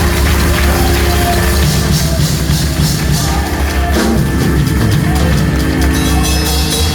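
Loud live gospel music from a church band, with a heavy steady bass line and full band playing throughout.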